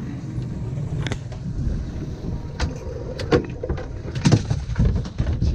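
Steady low rumble of a small fishing boat at sea, with several sharp knocks and clatters of gear on board.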